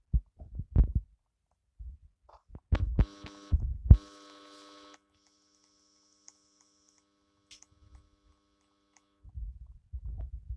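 Dull low thumps and knocks close to the microphone, then a steady buzzing hum that starts about three seconds in, drops to a faint hum about two seconds later and stops near the end, when the thumps return.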